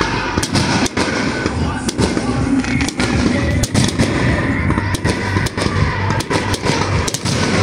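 Aerial firework shells bursting overhead in quick succession: irregular sharp bangs, several a second, over a continuous rumble.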